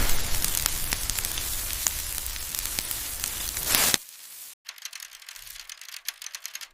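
Dense hissing, crackling noise that cuts off sharply about four seconds in, followed by faint scattered crackles.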